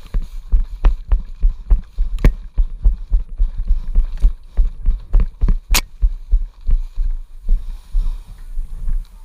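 Footsteps and the jolting of a body-worn camera as a player moves on foot, steady low thuds a few times a second. Two sharp cracks stand out, one about two seconds in and a louder one near six seconds.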